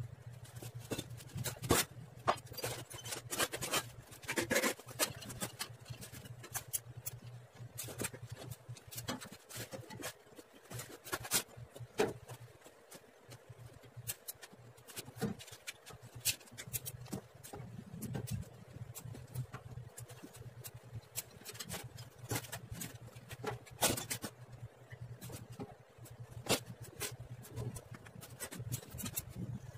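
Scattered light clicks and taps from hand work on stainless steel parts of a food cart, irregular and unevenly spaced, over a low steady hum that drops away for a few seconds about a third of the way in.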